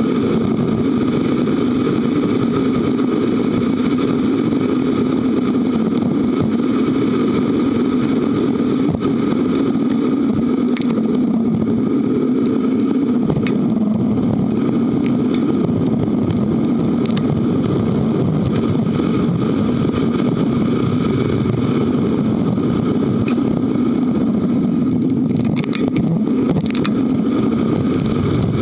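Steady rumble of wind and road noise on a camera mounted on a moving hybrid bicycle, with motor traffic passing close by. A few short rattles, mostly clustered near the end.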